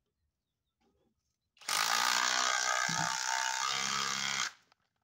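Kobalt XTR 24-volt impact driver running a stubby fastener into a log, in one loud burst of about three seconds that starts about one and a half seconds in and stops abruptly.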